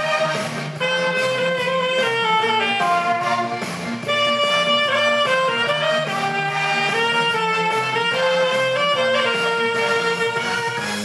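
Alto saxophone playing a melody of held and stepping notes, with accompaniment underneath.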